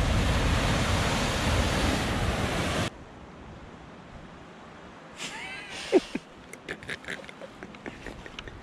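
Surf crashing against lava rock, with wind rushing on the microphone, cuts off abruptly about three seconds in. Faint hiss follows, with a short high wavering sound a couple of seconds later and a few scattered clicks.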